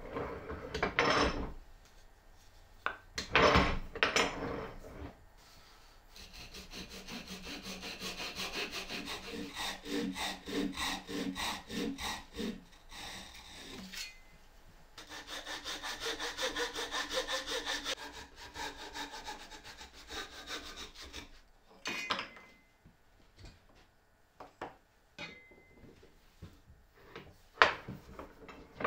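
Handsaw cutting a thin strip of wood, in two long spells of quick, even back-and-forth strokes. Before the sawing there are a few knocks of wood being handled on the bench, and after it scattered small taps, with one sharp knock near the end.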